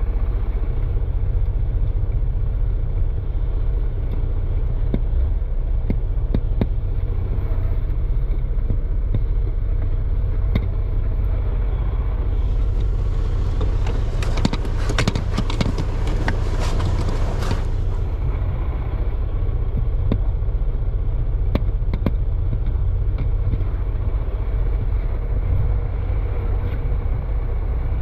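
Truck engine idling with a steady low rumble. About halfway through, several seconds of rubbing and scraping come from a rag scrubbing the cab floor and pedals.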